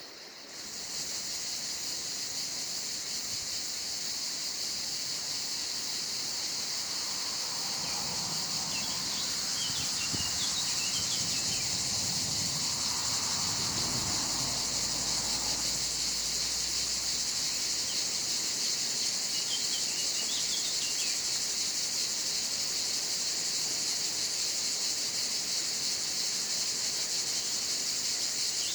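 A steady, continuous insect chorus shrills throughout, with scattered small bird chirps. A faint low rumble swells and fades about halfway through.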